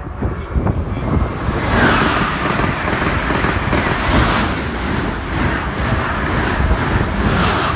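Amtrak Acela Express high-speed electric trainset passing at speed: a loud, steady rush of air and wheels on rails that builds over the first second or two.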